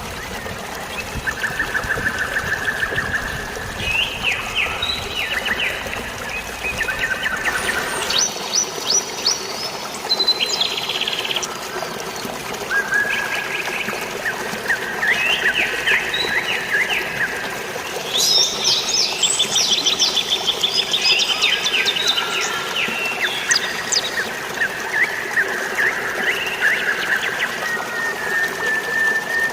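Several birds chirping and trilling in quick runs of repeated notes, over a steady wash of flowing water.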